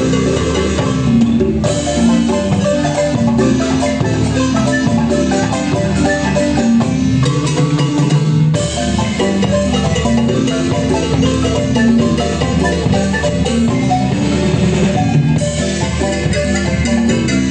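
Marimba music: a lively tune played in rapid mallet notes over a steady bass line.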